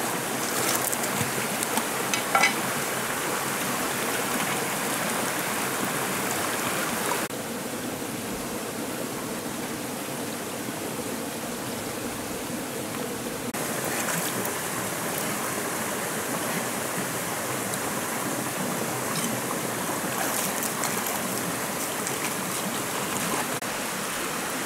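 Shallow rocky stream running and trickling steadily over stones. The water sound drops for about six seconds in the middle, then comes back.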